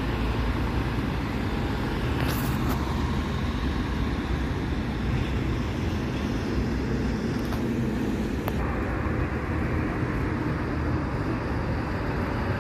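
City buses and road traffic driving past: a steady engine and tyre rumble with no sudden events, and a slowly rising engine tone near the end as a bus pulls by.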